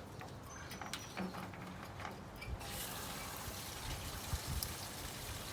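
Flushing water running through a downspout, with a few scattered clicks and knocks at first and then a steady rush setting in about two and a half seconds in, as the downspout drains.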